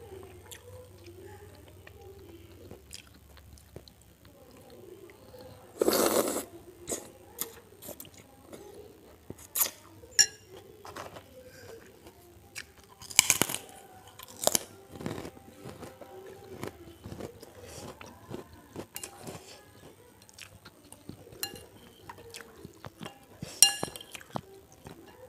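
Close-miked chewing, with several loud, crisp crunches of bitten krupuk crackers.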